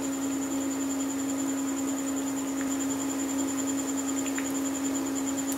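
Pakoras deep-frying in hot oil in a kadhai, a steady sizzle, with a constant low electrical hum running under it and a couple of faint clicks.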